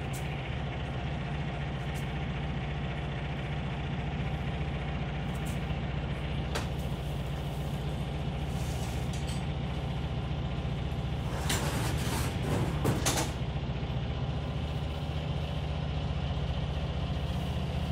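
Small ferry boat's engine running steadily under way, a low even drone. About twelve seconds in comes a brief, louder rush of noise.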